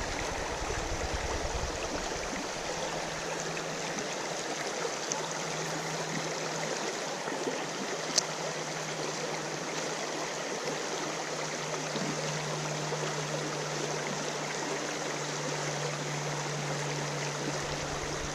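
Mountain trout creek flowing steadily, a constant wash of running water, with a single sharp click about eight seconds in and a faint low hum underneath.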